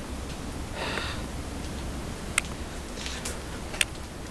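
Low steady room tone with a short breathy rustle about a second in, then two sharp, brief ticks about a second and a half apart.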